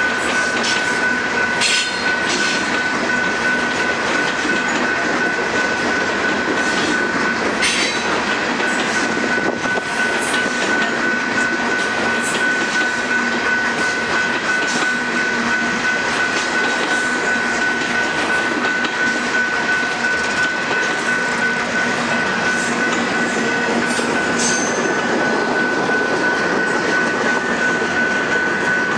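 Freight train cars rolling past: covered hoppers and then tank cars, their wheels running steadily on the rails with a steady high-pitched ringing tone and occasional clacks.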